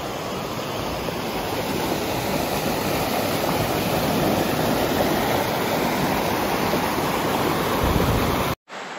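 Creek water rushing over and between boulders in a shallow rapid, a steady, loud churning rush that stops abruptly near the end.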